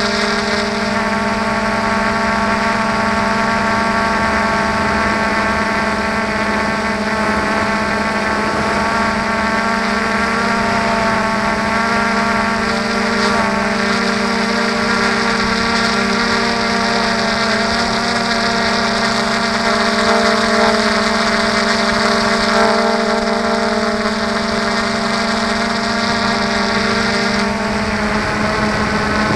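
Multirotor drone's motors and propellers running steadily, a hum with a steady whine above it, heard close up from the drone's own onboard camera. The high hiss above the whine drops out near the end, and the hum shifts slightly.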